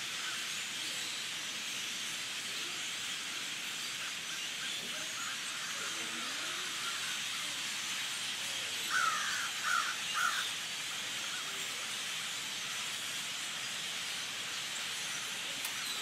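A large flock of birds in the trees calling all at once, blending into a steady hiss of chatter. About nine to ten seconds in, three short, louder calls stand out from it.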